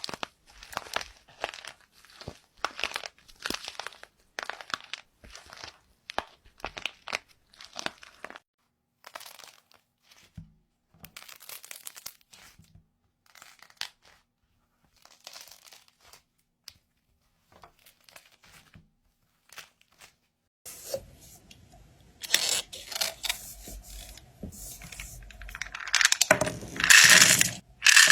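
ASMR crunching and crumbling of a crisp material, in a series of crisp crunches about two a second, then sparser and quieter strokes. About three-quarters of the way through it changes to a louder, denser crackling that grows towards the end.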